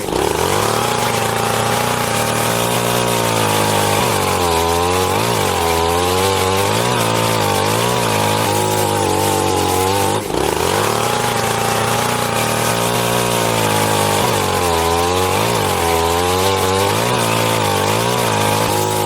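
Chainsaw engine running hard and loud, its pitch wavering up and down over and over as the throttle is worked, with a brief drop about ten seconds in.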